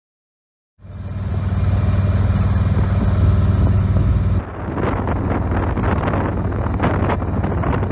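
Motorcycle engine running steadily at cruising speed, a low even drone, starting about a second in. It cuts off abruptly a little past the middle into wind buffeting the microphone over engine and road noise.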